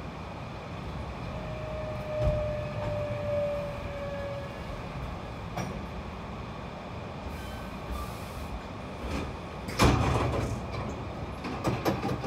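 Hankyu electric train running, heard from inside the front car: a steady rumble of wheels on rail. Early on a faint whine slides slightly lower; there is a knock at about two seconds, a cluster of loud clunks about ten seconds in, and several sharp clicks near the end.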